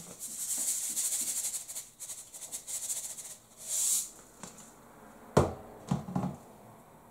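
Salt shaken from a salt container over raw potato chunks: a fast rattling hiss of grains for about four seconds. Then a sharp knock and a softer clunk as the container is put back down.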